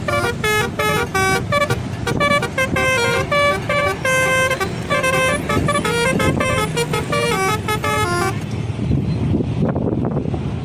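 Bus telolet horn, a set of air-horn trumpets, playing a quick tune of short notes mixed with a few longer held ones, over a bus engine's running rumble. The tune stops about eight seconds in, leaving engine and road noise.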